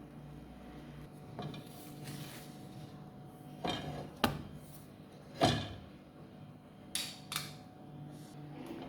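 Kitchen utensils knocking and clinking against dishes, about six separate knocks with the loudest two around four and five and a half seconds in, over a low steady hum.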